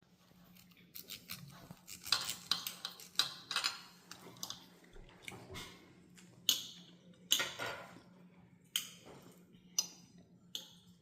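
Knife and fork clinking and scraping against a plate in short, irregular strokes as food is cut and eaten, over a faint steady hum.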